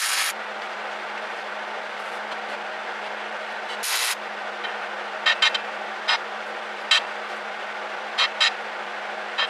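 Electric welder humming steadily, with two brief crackling bursts of arc as short tack welds are struck, one at the start and one about four seconds in. Several sharp clicks and taps of metal follow between them.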